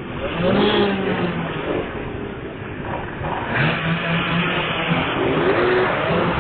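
Many motorcycle engines running together in a packed crowd of bikes, with several of them revved so the pitch rises and falls a few times.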